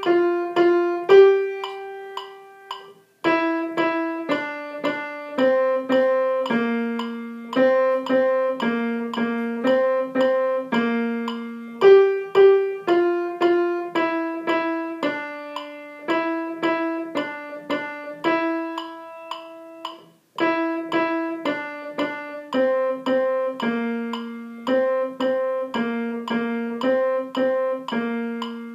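Yamaha grand piano playing a simple beginner's piece in the middle register: a melody over a lower line at a steady pace of about two notes a second. The playing stops briefly about three seconds in and again about twenty seconds in.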